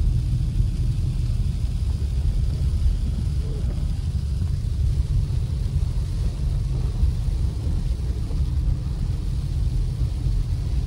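Steady low rumble of a vehicle driving on a snow-covered road, heard from inside the cabin: engine and tyre noise.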